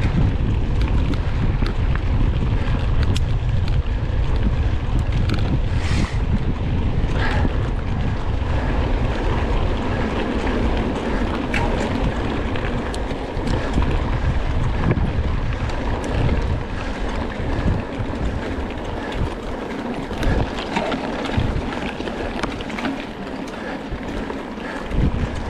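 Wind rushing over the microphone of a camera on a moving mountain bike, with scattered clicks and knocks. The low rumble is heaviest for about the first fifteen seconds and eases after that.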